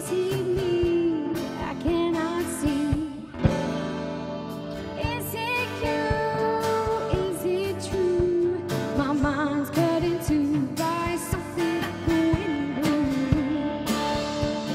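Live band playing a song: drum kit, bass guitar, electric and acoustic guitars, with a woman's wavering vocal melody over them.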